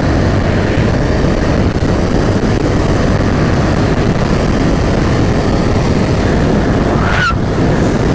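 Motorcycle riding fast on the open road: a steady rush of wind over the microphone mixed with engine drone as the bike speeds up. A brief rising tone sounds near the end.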